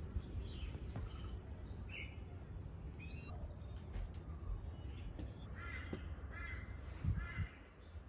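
Crow cawing: three short harsh calls in quick succession about six to seven seconds in, with a few fainter calls earlier. There is a low rumble throughout and a thump near the end.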